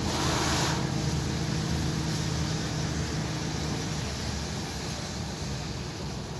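Lorry engine droning steadily, with tyre and road noise heard from inside the cab. A brief whoosh comes right at the start, and the engine note fades about four seconds in.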